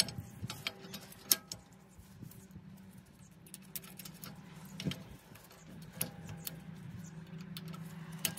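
Scattered light metal clicks and clinks of a steel tractor lift arm and its clevis pin being handled and fitted by hand, with one sharper click about a second in. A faint steady low hum lies underneath.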